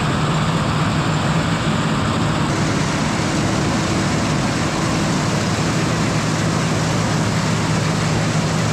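International 686 tractor running steadily under load while driving a New Idea corn picker, a constant engine drone mixed with the picker's machinery noise. Everything is running smoothly, with no sign of trouble.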